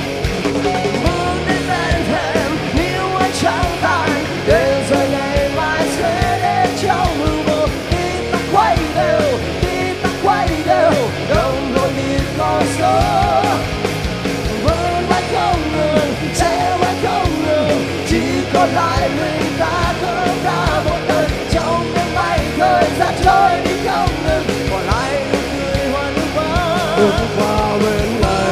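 Rock band playing a loud, dense rock song with a lead vocal singing over drums and guitars.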